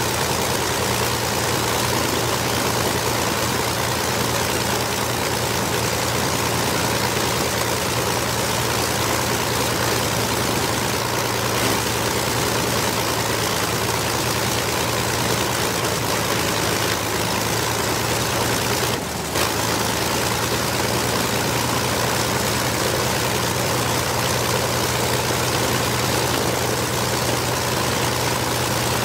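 The two Rolls-Royce Merlin V-12 engines of a de Havilland DH.98 Mosquito run steadily on the ground, propellers turning, with an even, unchanging engine note. The level dips once, briefly, about two-thirds of the way through.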